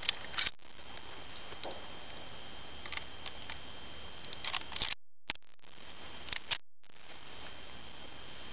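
Faint scattered clicks and handling noises from a Ruger Mark III .22 pistol being reloaded between ten-shot strings, over a steady background hiss. The sound cuts out completely twice, briefly, a little past the middle.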